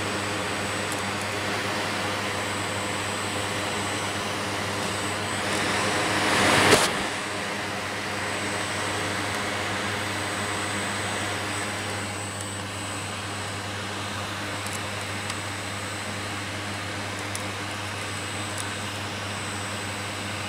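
Vacuum cleaner running steadily. A rising rush of air builds about five seconds in, peaks sharply about a second later, then drops back to the steady running sound.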